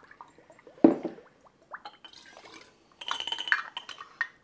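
Juice poured through a metal funnel into glass swing-top bottles, with clinks of glass and funnel; a sharp knock about a second in is the loudest sound, and a steady pouring hiss sets in about three seconds in.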